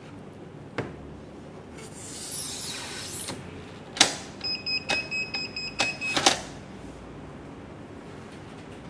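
Sharp plastic clicks from a WiFi video doorbell unit being handled on its mount, with a brief rustle before them. About halfway through, a steady high electronic tone from the doorbell sounds for under two seconds among the clicks.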